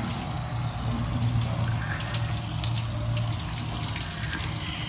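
Water spraying from a hose wand into a pickup truck's wheel well, hissing against the metal and the tyre, over a steady low hum.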